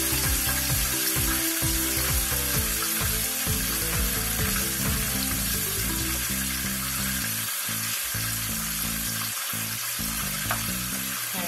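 Chicken thighs frying as they brown in a pot on the stove, a steady sizzle throughout.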